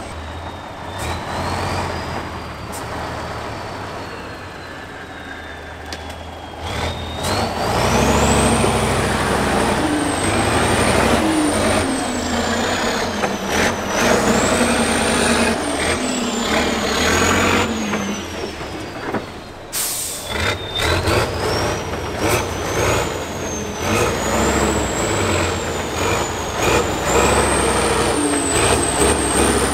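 Tatra 6x6 trial truck's diesel engine revving hard under load as it claws up a muddy slope, with a high whine that rises and falls with the revs.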